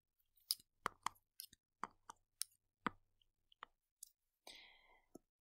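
Faint, irregular sharp clicks and taps, about a dozen, made while writing on a computer screen with a digital pen tool, with a brief soft rustle about four and a half seconds in.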